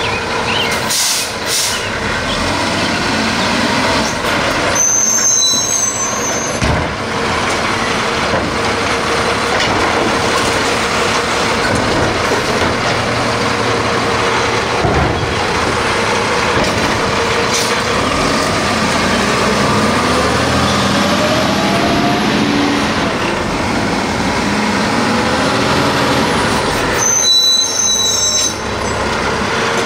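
Labrie automated side-loader on a 2018 Peterbilt 320 recycling truck at work: the truck's engine running while the hydraulic arm lifts a recycling cart, dumps it into the hopper and sets it back down, with a rising whine about two thirds through. A short air-brake hiss near the start.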